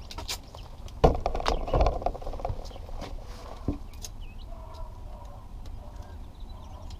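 Blue painter's tape being pulled off the roll and pressed down by hand: a rough, crinkly stretch of about a second and a half starting about a second in, with handling clicks around it.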